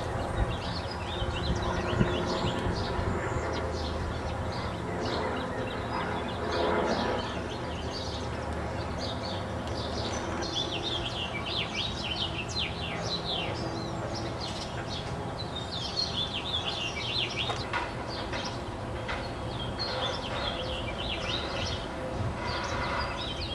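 Several birds chirping and singing in quick, short notes, busiest in the second half, over a steady low background rumble.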